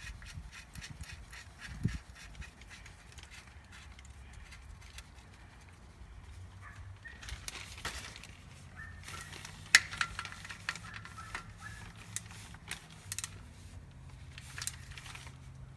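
Socket wrench clicking and metal tapping as the oil drain plug is snugged up by hand, in short runs of sharp clicks over a faint steady low hum.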